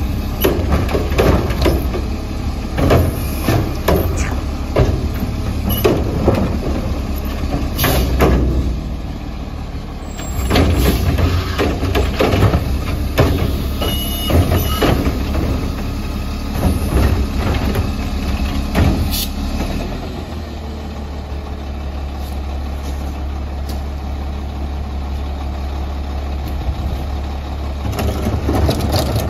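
Mack LE garbage truck with a Curotto Can arm, its engine running under repeated clanks and bangs as the arm grabs and tips a cart into the can. About two-thirds of the way through the clatter stops and the engine idles steadily, and the knocks return near the end.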